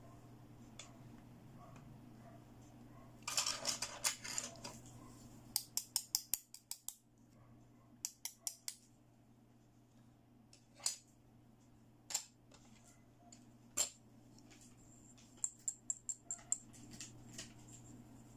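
Pink plastic toy doctor-kit pieces being handled and knocked together on a wooden table: sharp plastic clicks and clacks, a dense clatter about three seconds in, quick runs of clicks after it, then scattered single clicks.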